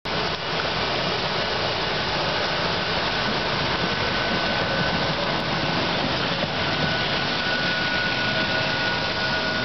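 St. Louis Car Co. Silverliner III electric multiple-unit railcars departing and rolling past close by. A steady rumble of wheels on rail carries a thin, steady high whine over it.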